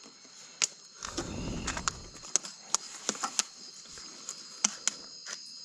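Crickets chirring steadily in a night-time chorus, with scattered sharp clicks and a brief low rumble about a second in.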